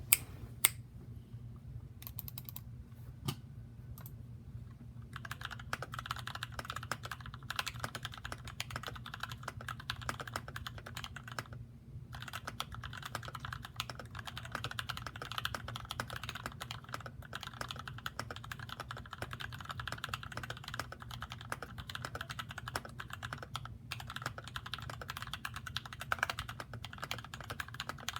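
Mechanical keyboard with lubed and filmed Gateron Yellow linear switches (milky top housings), PBT cherry-profile keycaps and a plastic 60% case being typed on. A few lone keystrokes come first, then steady fast typing from about five seconds in, with a brief pause near the middle. A steady low hum sits underneath.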